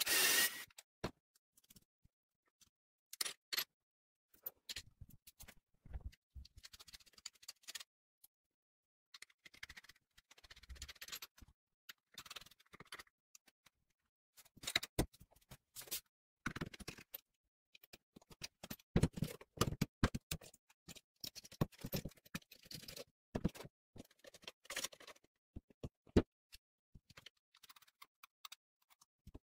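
Clicks, taps and scrapes of steel parts, bolts and nuts being handled and fitted while a homemade angle-grinder stand's carriage is assembled, with a short whir of a cordless drill driving a bolt right at the start, the loudest sound here.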